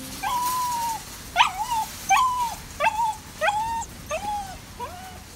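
A dog whining over and over, waiting for its owner to come back out of the shop. It gives a string of high whines about every two-thirds of a second, each rising sharply and then held, the first one the longest.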